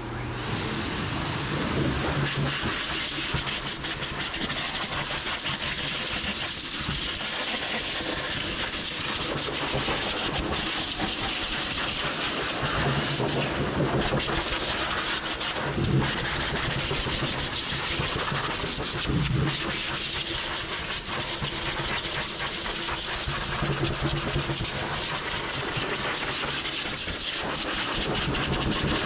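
High-velocity pet dryer switched on and blowing a steady, loud rush of air through its hose and nozzle.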